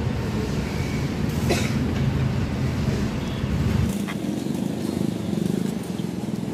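Street traffic noise: a vehicle engine running with a steady low rumble, the deepest part dropping away about four seconds in, and a brief clatter about a second and a half in.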